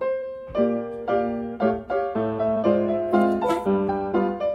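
Solo piano ragtime playing as background music, with a bouncing, even beat of notes and chords.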